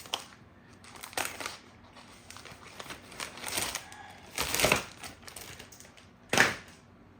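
A plastic bag crinkling and rustling while it is handled, in about five short bursts, the loudest about six seconds in.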